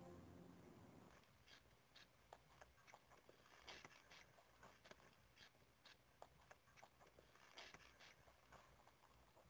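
Near silence with faint, scattered small clicks and rustles, the kind of light handling and clothing sounds heard during a stethoscope check; music fades out in the first second.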